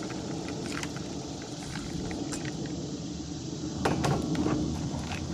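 Dry dog-food kibble rattling in scattered small clicks as it is poured from a steel bowl into a plastic bucket, then a louder knock about four seconds in as a tool goes into the bucket to stir the mix.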